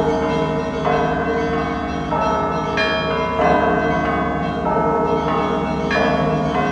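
Russian Orthodox bell ringing (zvon) from the Danilov Monastery belfry. Several bells of different pitches are struck in an overlapping rhythm, a new stroke about every second, over the sustained ring of a deeper bell.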